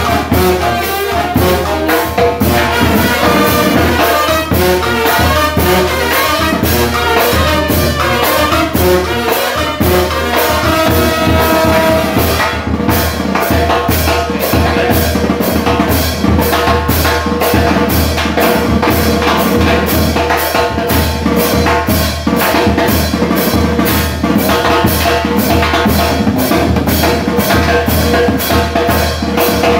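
Nicaraguan chichero-style brass band playing a fast, steady beat: trumpet, saxophone, trombone and sousaphone over a bass drum with a mounted cymbal, metal timbal drums and clashing hand cymbals. About halfway through, the trumpet and trombone drop out, leaving the saxophone and the drums.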